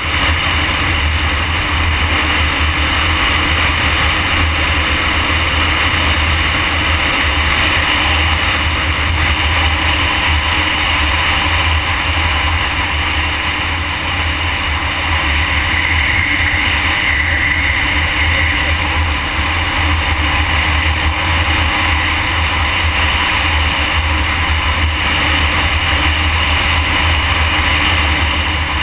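Steady wind noise on the microphone of a motorcycle cruising at highway speed, mixed with the drone of its engine and the tyres on the road.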